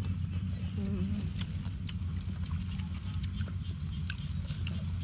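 Eating at close range: scattered small clicks and crunches from biting cucumber and handling grilled chicken in plastic gloves, over a steady low hum, with a brief murmur of a voice about a second in.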